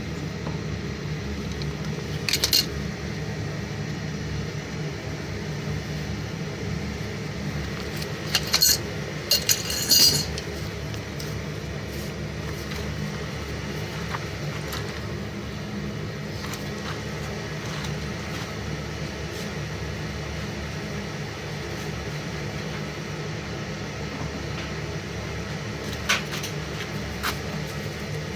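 Steady low hum of a running furnace, with a few brief clinks and clatters of hard parts being handled, the loudest a quick cluster about ten seconds in.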